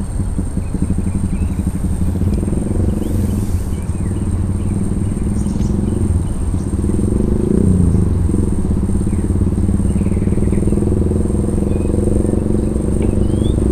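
A motor engine running steadily with a low hum, its pitch bending briefly about eight seconds in.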